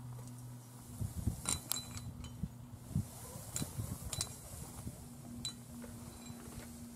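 Metal climbing hardware (carabiners and cams on a harness gear rack) clinking in a handful of sharp, irregular clinks, with low thuds and scuffs of movement on the rock.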